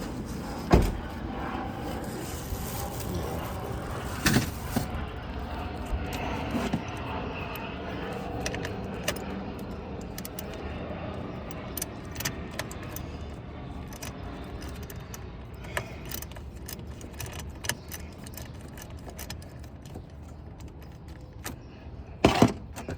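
Metal hand tools clinking and scraping on a car battery's terminal clamps as the corroded terminals are worked loose, with scattered light clicks and a few sharper knocks over a steady background hum.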